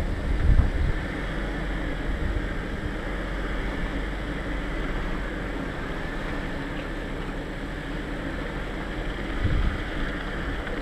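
Off-road vehicle driving slowly along a rough, muddy dirt trail: a steady engine and tyre rumble, with low thumps about half a second in and again near the end as it jolts over the ruts.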